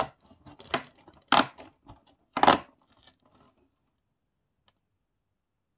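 LEGO advent calendar packaging being torn open: four short ripping tears in the first two and a half seconds, the last the loudest.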